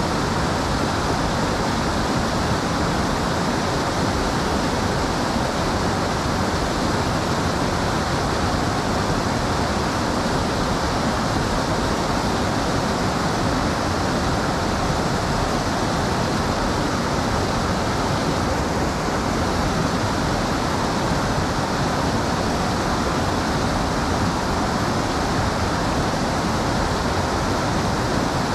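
Steady rush of flowing creek water, an even hiss that stays constant throughout.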